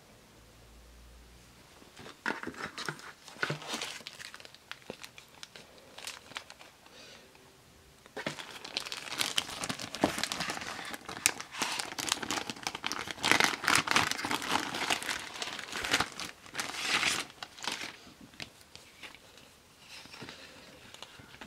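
Clear plastic sleeve crinkling and crackling as a card is handled and slid out of it, in irregular bursts that start about two seconds in and are densest and loudest in the middle, thinning out near the end.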